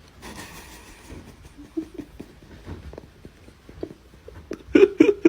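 A pet animal making short, quiet noises among small clicks and knocks, with two louder short calls near the end.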